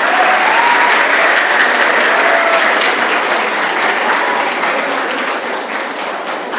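An audience of students applauding loudly, the clapping tapering off slowly.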